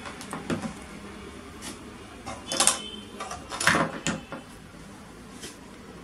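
Hard plastic clicks and knocks as a GoPro in its frame and a J-hook buckle mount are handled and set down on a table. There are several scattered taps, the loudest about two and a half and nearly four seconds in.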